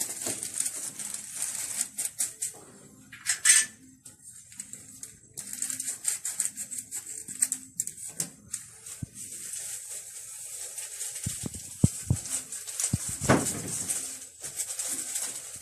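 Quiet handling at a countertop blender: scattered soft taps and clicks, with a louder knock near the end as a hand works the jug's lid. The blender motor is not running.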